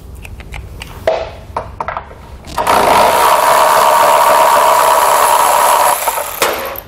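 Cordless electric ratchet with a 10 mm socket spinning a nut off a stud: a loud, steady motor whir for about three seconds, starting a little under three seconds in, after a few light clicks. A short burst from the ratchet follows near the end.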